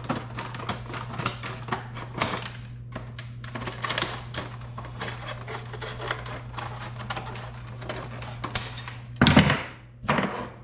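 Packaging of a new car horn being opened: rapid, irregular clicking and crackling of plastic and cardboard, with a louder crunch lasting about a second near the end, over a steady low hum.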